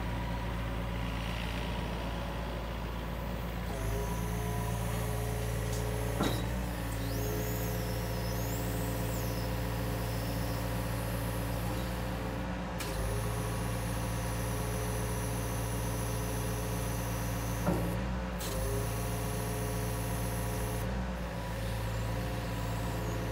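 Yanmar Vio50 mini excavator's diesel engine running steadily while its hydraulics work the arm and tilting hitch, the engine note shifting every few seconds as the load changes. A sharp knock comes twice, about six seconds in and again near eighteen seconds.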